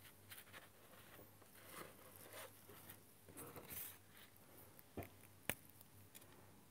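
Faint rustle of a paper sheet being lifted and moved across the table, followed by two sharp clicks about half a second apart.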